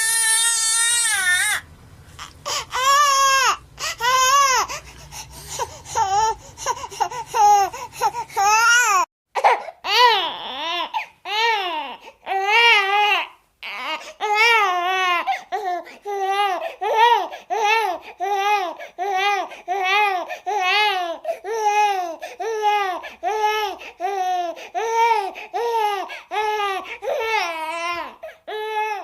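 High-pitched, baby-like crying used as a character's crying sound effect: a string of short wails, each rising and falling in pitch, coming about once a second with brief breaks near 9 and 13 seconds in.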